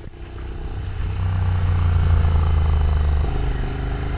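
Royal Enfield Continental GT 650's parallel-twin engine running under way. It grows louder over the first two seconds, and the deep engine note eases a little past three seconds in.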